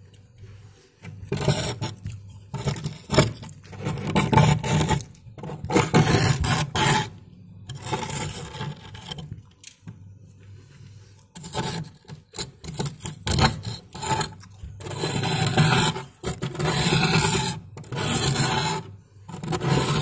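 Thick freezer frost being scraped and dug out with a hand tool: a series of rasping scrape strokes, each about a second long, with a short pause around the middle.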